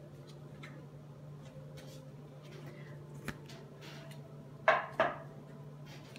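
A deck of tarot cards being shuffled by hand: faint scattered ticks and rustles, then two short, sharp snaps close together a little before the end, over a steady low hum.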